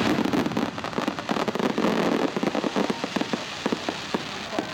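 Aerial fireworks bursting and crackling: a loud report right at the start, then a quick, dense run of many sharp pops.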